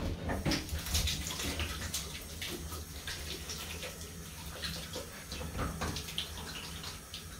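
A bathroom washbasin tap running while hands are washed under it, with water splashing into the basin.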